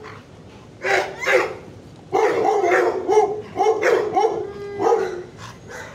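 A dog barking: two barks about a second in, then a quick string of barks and calls that bend in pitch until past four seconds, and one more bark near the end.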